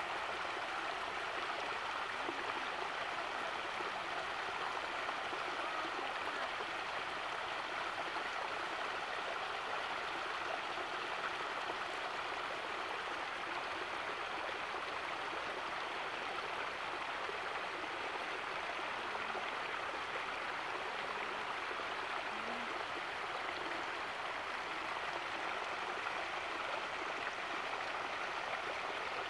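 Snowmelt water running off a snowfield in a steady stream: an even, unbroken rush.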